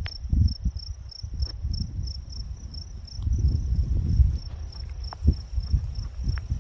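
An insect chirping in a steady, evenly pulsed high tone, over the gusty low rumble of wind buffeting the microphone.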